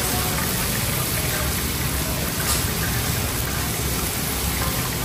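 Fish frying in hot oil: a steady, even sizzle.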